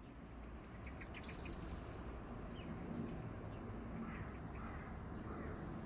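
Faint outdoor ambience: a steady low rumble with scattered bird calls.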